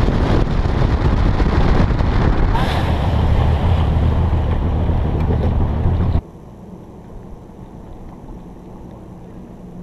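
Bass boat running across the lake under outboard power: a loud engine rumble mixed with rushing wind buffeting the microphone. About six seconds in it cuts off suddenly to a much quieter scene with a faint steady low hum.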